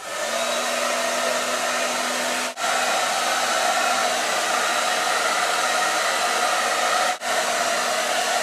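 Handheld hairdryer switched on and blowing steadily over a wet carbon print, drying off the standing water. It dips for an instant twice, about two and a half and seven seconds in.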